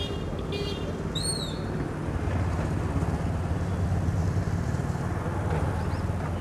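Light street traffic: motorcycle engines running past, with a low rumble that grows louder a couple of seconds in as a motorcycle passes close. A bird chirps once about a second in.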